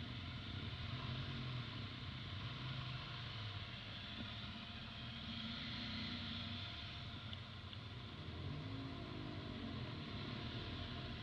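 Motorcycle engine running at low speed, its pitch rising and falling gently with the throttle, over steady wind and road noise. Other motorcycles run nearby.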